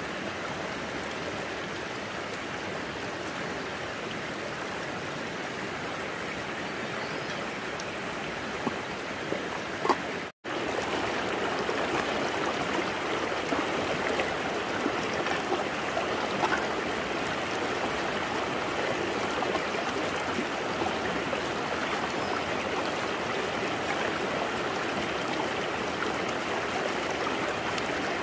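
Steady rush of running water, like a stream. It breaks off for an instant about ten seconds in and resumes a little louder.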